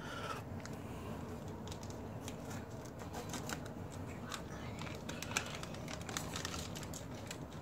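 Plastic gift packaging being handled and cut open: crinkling and rustling, with scattered sharp clicks and snips.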